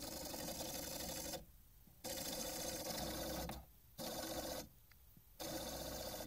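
Record player's turntable motor and drive making a weird mechanical noise in four stretches, about two seconds, one and a half seconds, then two shorter ones, broken by brief pauses, as the platter fails to spin properly: the motor is sticking.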